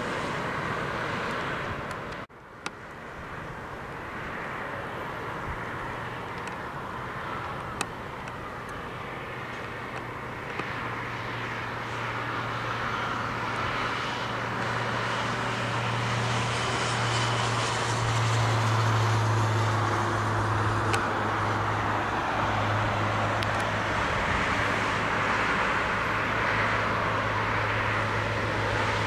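A train approaching along the line, its running noise growing steadily louder, with a steady low hum setting in about ten seconds in.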